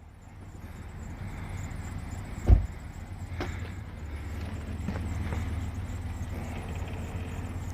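Car engine running steadily, a low rumble, with one loud knock about two and a half seconds in and a few lighter clicks.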